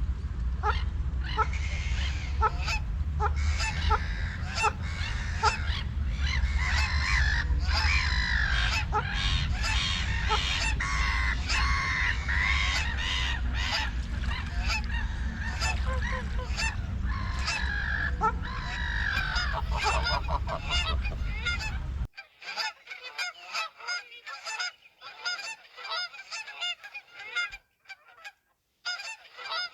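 Geese honking, many calls overlapping in quick succession. A steady low rumble under the calls stops abruptly about three-quarters of the way through, after which the honks come more sparsely.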